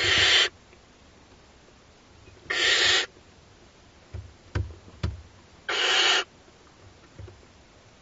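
Barn owl chicks giving their hissing, snore-like begging calls: three harsh half-second hisses about every two and a half to three seconds. Between the calls there are a few soft knocks from the owlets shifting about on the nest box floor.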